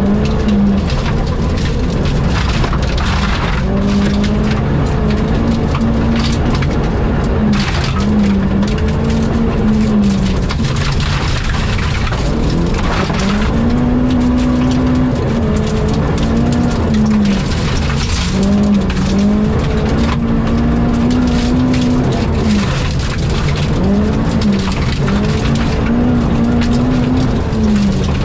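Rally car engine running hard, its note climbing and dropping again every second or two through the stage, over steady tyre and road noise.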